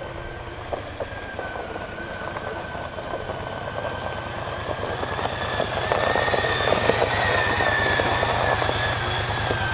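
John Deere Gator utility vehicle's engine running as it drives, with a steady high whine over the engine note. It grows louder over the first six seconds or so, then holds.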